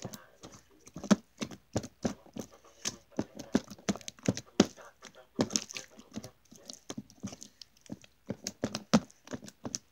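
Runny, jiggly homemade slime being squeezed, pulled and slapped by hand on a tabletop: irregular wet clicks and pops, several a second.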